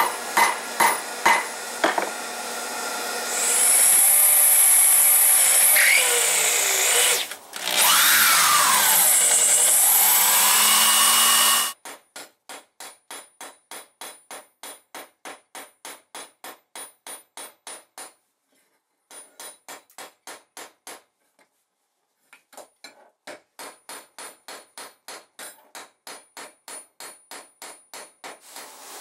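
A hammer strikes red-hot steel on a railroad-rail anvil five times with a ringing clang. Then comes a loud hiss with pitches sliding down and back up for about eight seconds, and after a sudden break a long run of quick, light, evenly spaced hand-tool strokes, about three a second, pausing twice.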